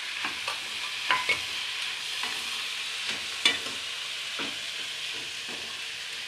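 Onion, tomato, ginger and green-chilli masala frying in oil in an aluminium kadhai: a steady sizzle, with a metal ladle clinking and scraping against the pan as it is stirred. The loudest clink comes about three and a half seconds in.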